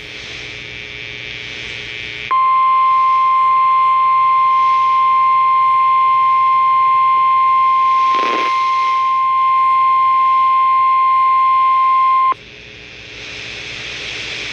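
Radio hiss, then about two seconds in the NOAA Weather Radio warning alarm tone: one steady, loud 1050 Hz tone held for about ten seconds that cuts off sharply, back to hiss. The tone signals that a warning message follows, here a severe thunderstorm warning.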